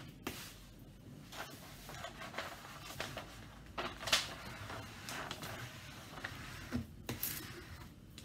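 A flat plastic tool rubbed and pressed across the plastic film of a diamond-painting canvas in short irregular strokes, with a louder crinkle of the canvas sheet about four seconds in as it is lifted.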